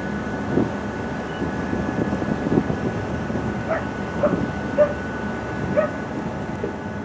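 Harbour ambience: a steady low rumble with a faint steady whine. In the second half come about four short yelping animal calls, spaced roughly half a second to a second apart.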